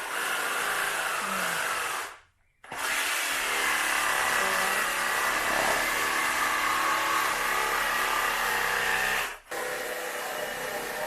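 Power tool with a diamond masonry blade cutting into masonry, with a steady, loud cutting whine. It stops briefly about two seconds in, starts again, and near the end dips for a moment before running on a little quieter.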